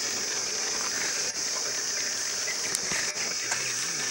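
Steady high-pitched drone of insects in the grass, with a few faint clicks and rustles over it.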